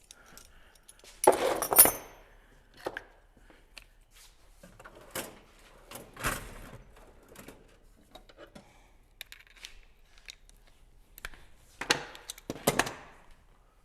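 Allen keys and other metal hand tools clinking and clattering, in scattered knocks, with a louder clatter about a second in and another near the end.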